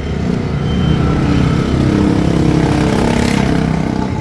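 Motorcycle engine running and revving, its pitch and loudness rising over the first couple of seconds, then holding.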